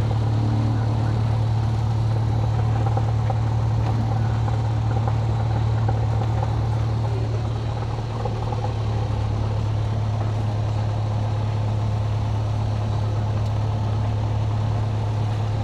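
Cessna 172's piston engine and propeller running steadily at low power, a loud, even low drone heard from inside the cabin.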